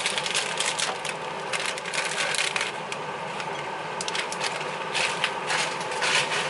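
Plastic bag of salad leaves crinkling as it is handled and emptied into a bowl: dense crackling, heaviest in the first couple of seconds and again from about four seconds in.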